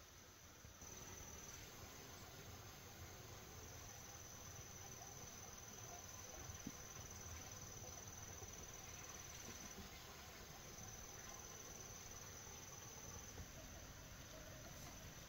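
Faint, steady, high-pitched insect trill in the background, breaking off for about a second near the middle, with a faint click partway through.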